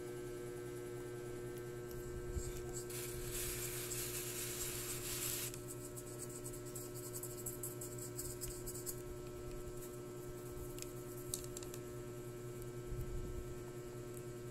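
Steady electrical hum in a small room, with faint scratching of a paintbrush dabbing paint onto a small ball. A soft hiss rises about three seconds in and cuts off about two and a half seconds later.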